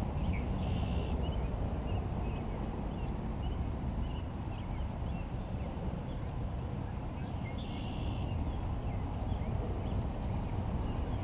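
Steady low rumbling outdoor noise, with two brief buzzy high-pitched calls, one about a second in and one around eight seconds in.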